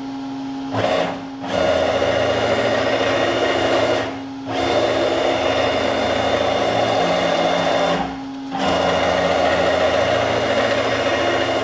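Stepper motor driving a PM-727M mill's Z-axis ballscrew at about 150 inches per minute: a steady buzzing whine in three runs of about three to four seconds, broken by short pauses about four and eight seconds in. This is the smaller X-axis stepper, and it moves the axis without any trouble. A steady hum sits underneath.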